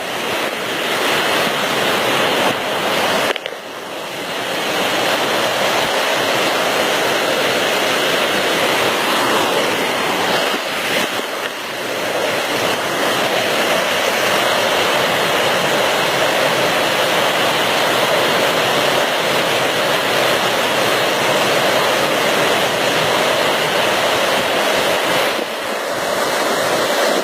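Fast-flowing floodwater rushing steadily, a continuous loud wash of noise that dips briefly a few times.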